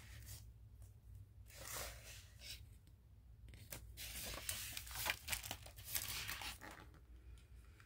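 Quiet paper rustling as a picture book's page is turned: a short rustle about two seconds in, then a longer stretch of rustling and swishing as the page goes over.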